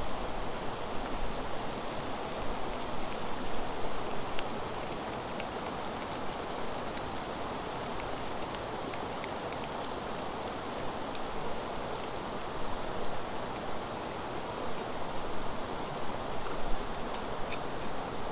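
Steady rush of flowing river water, with a few faint ticks on top.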